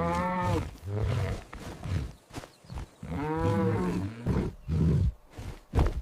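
A big cat roaring twice, each roar rising and then falling in pitch over about a second, with deep rumbling grunts between and after.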